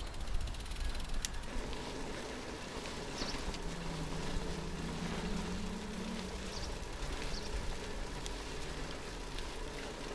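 Riding noise on a moving bicycle: wind rumbling on the microphone over road noise, with a low engine hum from a motor vehicle in the middle and a few brief high chirps.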